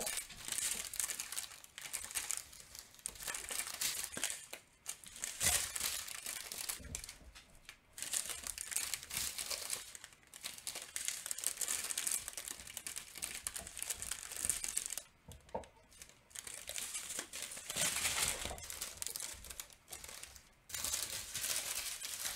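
Clear plastic bags of diamond-painting drills crinkling and rustling as they are handled and turned over, in irregular spells with brief pauses.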